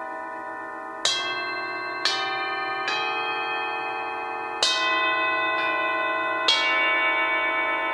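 Hand-hammered Tibetan singing bowls struck one after another with a mallet: six strikes about a second or two apart, each a bright attack that settles into a sustained, many-toned ring overlapping the bowls still sounding.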